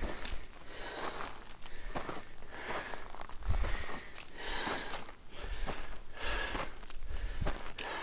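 A hiker's heavy breathing, about a breath a second, as he climbs a steep slope, with footsteps and low thuds on loose, gravelly soil.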